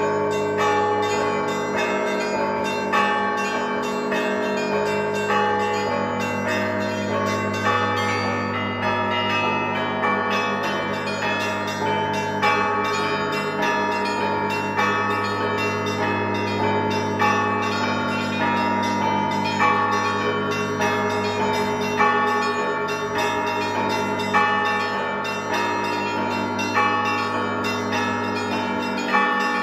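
Orthodox monastery bells being rung in a continuous peal: smaller bells clang quickly and densely over a ringing hum, with a heavier accented stroke about every two and a half seconds.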